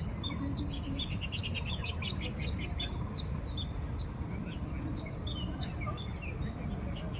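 Small songbirds chirping in quick, busy runs of short notes, thickest in the first three seconds and sparser after, over a steady low background rumble and a constant high-pitched whine.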